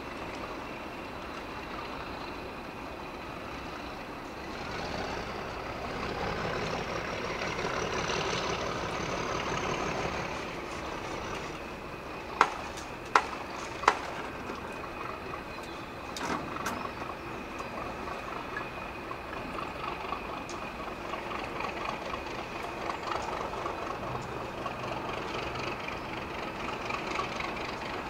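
Diesel locomotive running, a steady mechanical hum with a faint whine that rises and fades about a quarter of the way in. About halfway through come three sharp clanks in quick succession, the loudest sounds here, followed by a few lighter knocks.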